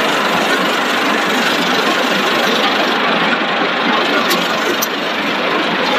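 Steady din of a cereal-ball production line's machinery running, an even rushing noise that does not change, with a couple of faint short clicks about two-thirds of the way through.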